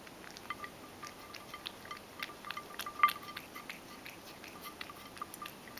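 A cat eating dry kibble from a stainless steel bowl: a quick, irregular run of crunches and small clinks as the kibble and its mouth knock against the bowl, which rings faintly. One clink about three seconds in is the loudest.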